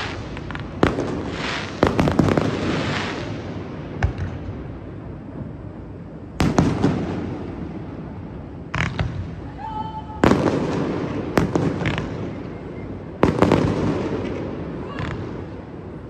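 Aerial fireworks shells bursting in a series of sharp booms, about six loud ones spread a second or several apart, each trailing off in a rumble.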